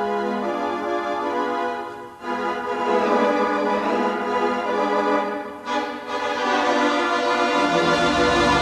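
Organ music playing sustained chords, broken by two short pauses about two seconds in and again about five and a half seconds in, with a deeper note coming in near the end.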